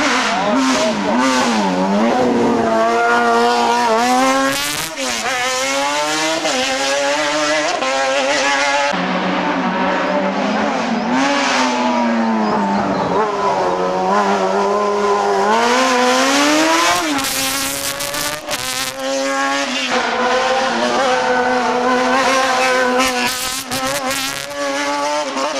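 Race car engine revved hard and repeatedly, its pitch climbing and dropping over and over as it is blipped and held at high revs.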